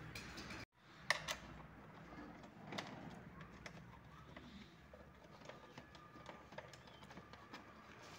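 Faint, scattered clicks and light knocks of hands handling parts in a motorcycle's under-seat battery and fuse compartment, with a sharper pair of clicks about a second in and another near three seconds.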